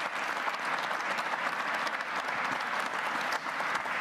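Audience applauding: many people clapping steadily, echoing in a large hall.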